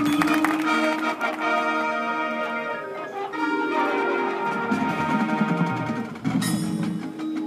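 Marching band playing held wind chords over bell-like mallet percussion and chimes from the front ensemble, with a bright crash about six seconds in.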